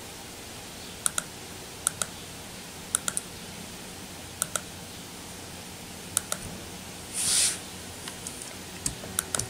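Computer mouse clicking: sharp clicks about once a second, mostly in close pairs, over steady room tone. A short hiss comes about seven seconds in.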